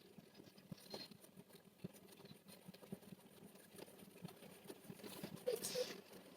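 Faint, irregular light taps and soft handling noises, with a brief small squeak near the end.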